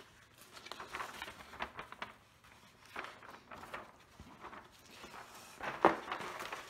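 Tightly rolled diamond painting canvas with its plastic cover film crackling and rustling in irregular bursts as it is unrolled and pressed flat by hand, with one sharper, louder crackle near the end.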